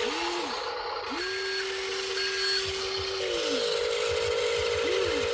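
Small electric motors of radio-controlled Huina toy construction machines whining. Each one spins up, holds a steady pitch and winds down as the controls are worked, over a steadier higher whine, with two short high beeps about a second in and again near the middle.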